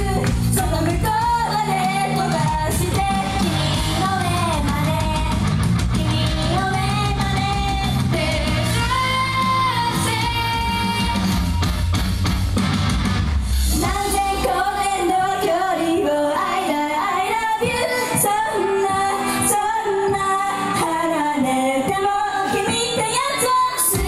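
A pop song sung by a female vocalist over a backing track. Heavy bass runs through the first half; about halfway through the bass drops out, leaving the voice over lighter accompaniment.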